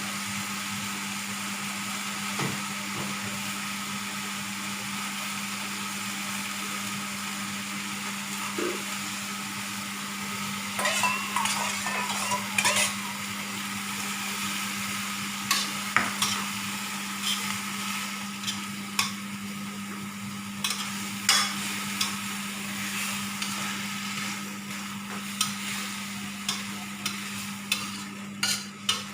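Food sizzling in a frying pan with a steady hiss, while a spatula stirs it; from about a third of the way in, the spatula knocks and scrapes against the pan every second or so.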